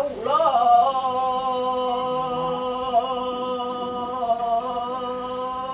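A single voice chanting, sliding up into one long steady note and holding it.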